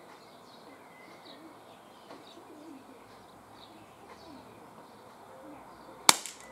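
A pigeon cooing low and small birds chirping, then about six seconds in one sharp crack from the Smith & Wesson M&P R8 CO2 revolver firing a pellet.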